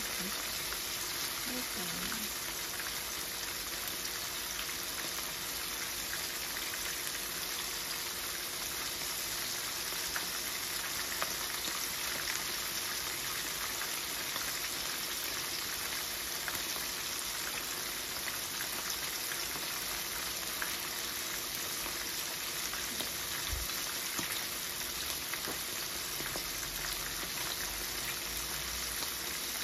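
Small fish frying in hot oil in a pan: a steady sizzle with fine crackling throughout.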